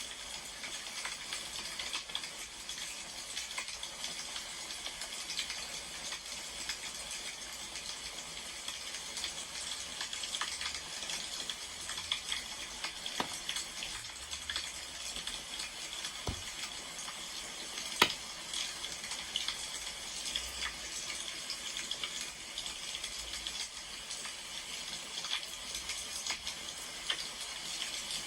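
Wood fire crackling: a steady hiss full of small snaps, with one sharp, loud pop about eighteen seconds in.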